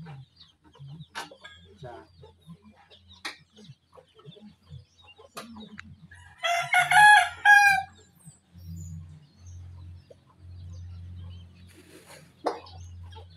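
A rooster crows once, a loud call of about a second and a half starting about six seconds in. Scattered short clicks and knocks from hand tools working on a vehicle's front suspension can be heard around it.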